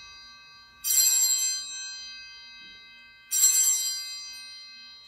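Small altar bell struck twice, about two and a half seconds apart. Each strike is a clear, high ring that fades slowly, and the ring of a strike just before is still dying away at the start.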